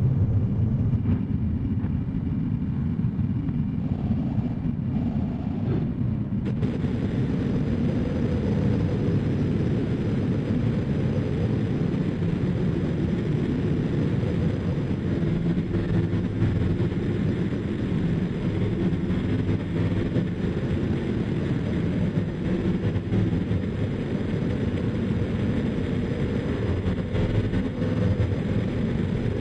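Harsh noise drone: a recorded track corrupted through a chain of effects pedals (KMA Cirrus, Subdecay Vitruvian Mod, Mastro Valvola LEM, OBNE Dark Star, EHX Stereo Memory Man) into a Boss RC-505 looper, a dense steady rumble with most of its weight low down. About six seconds in, a brighter hiss layer comes in on top.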